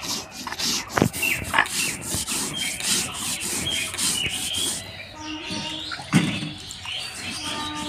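Poppy seeds being ground on a flat stone slab with a stone roller (shil-nora): rhythmic rasping rubs of stone over seeds and stone, about two to three strokes a second. A heavier knock comes about a second in and another about six seconds in.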